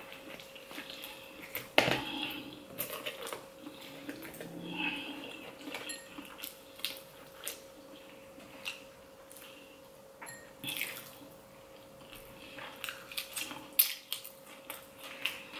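Close-up eating sounds of oysters and battered fish: wet mouth smacks, slurps and chewing, with scattered light clicks of a fork in a foil tray and finger-licking. A faint steady hum sits under it.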